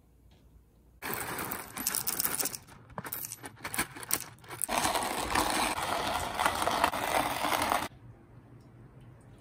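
Coffee beans clattering in a hand-cranked coffee grinder, then the crank turned steadily, the burrs crunching the beans for about three seconds before it cuts off suddenly near the end.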